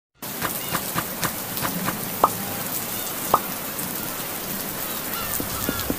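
Steady rain hissing, with scattered drops plinking; two drips stand out about two and three and a half seconds in.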